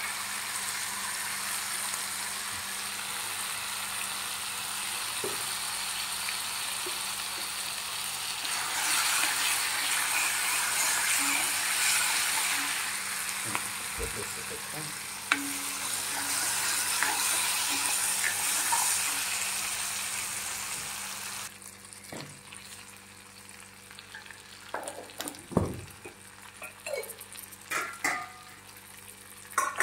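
Mustard paste sizzling in hot mustard oil in a kadai while a steel ladle stirs it. The sizzle grows louder about a third of the way in and drops off suddenly about two-thirds through, followed by scattered scrapes and knocks of the ladle against the pan.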